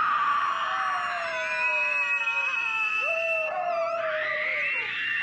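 A woman screaming in terror in a horror film soundtrack: long, high, held screams that slide in pitch, several in a row.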